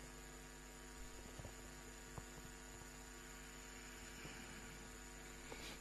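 Faint steady electrical hum, with a few faint ticks.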